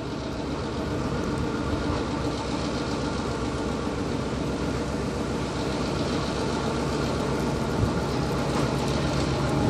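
Diesel engine of an EMD GP10 road-switcher locomotive, a 16-cylinder two-stroke EMD 567, running steadily and growing slowly louder.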